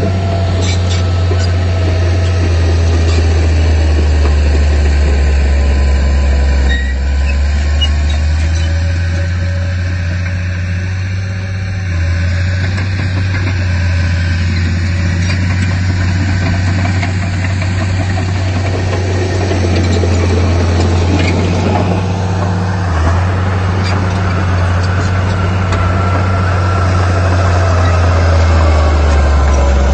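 Heavy earthmoving machine's diesel engine running continuously under working load, its low hum swelling and easing slightly at times.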